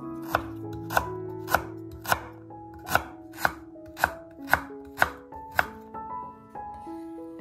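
Kitchen knife slicing peeled ginger root into rounds on a wooden cutting board: about ten chops, roughly two a second, that stop a little after halfway.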